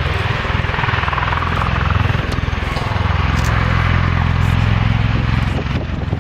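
Bell Boeing CV-22B Osprey tilt-rotor flying past, its proprotors beating with a fast, even low pulse over a loud steady turbine rush; the sound dips briefly near the end.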